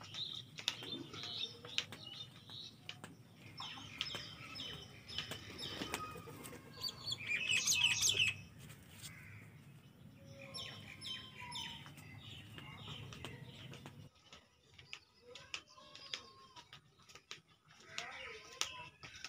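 Birds chirping and calling, in short repeated notes, with a louder burst of calls about eight seconds in.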